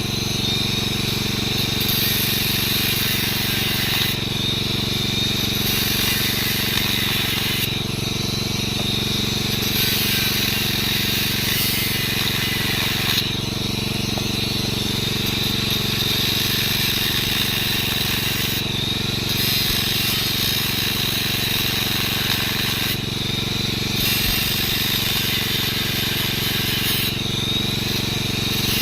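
A machine running steadily with a constant low hum, and hissing noise above it that swells and fades every few seconds.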